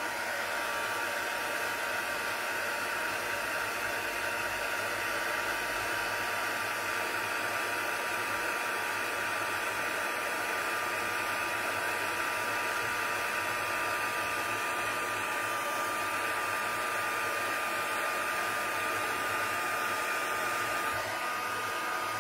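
Handheld embossing heat gun running steadily, its fan blowing with a thin steady whine, as it heats and melts embossing powder on a stamped card.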